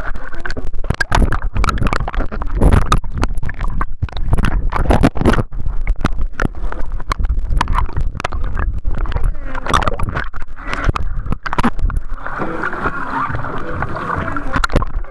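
Pool water sloshing and gurgling around a waterproof camera as it is dunked under the surface and pulled about, with a low rumble and many sharp knocks and thumps from handling and splashing.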